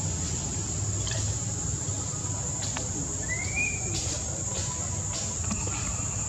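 Steady high-pitched insect drone, with a short rising squeak about three seconds in and a few faint clicks.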